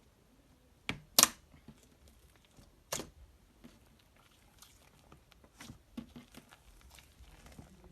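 Slime being handled and pressed, giving scattered sharp pops and crackles. The loudest pop comes about a second in, with others near three and five and a half seconds.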